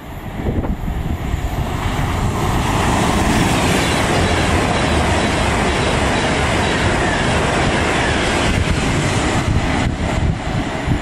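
Class 390 Pendolino electric train passing through at speed: a rush of wheels on rail and air that swells a couple of seconds in, holds loud for several seconds, then eases near the end.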